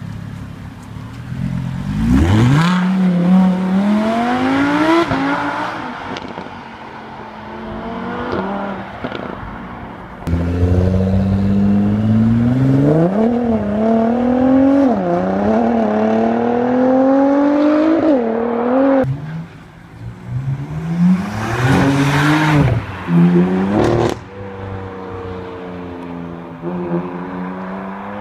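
Supercar engines accelerating hard. The revs climb repeatedly, and short dips in pitch between the climbs mark the gear changes. Near the end the sound settles to a steadier engine note.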